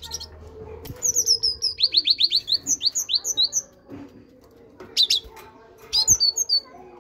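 Great tit singing: fast runs of repeated high notes, each sliding down in pitch, from about a second in for a couple of seconds, then two shorter bursts near the end.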